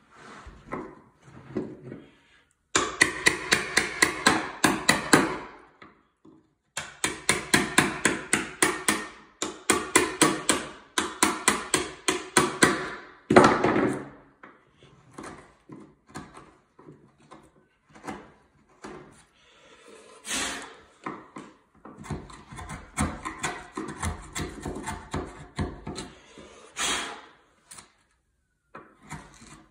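Wood chisel struck with a hammer, chopping a recess in wood for the fastener plate: two runs of quick blows about four a second, then lighter scattered taps and scraping as the chisel pares out the chips.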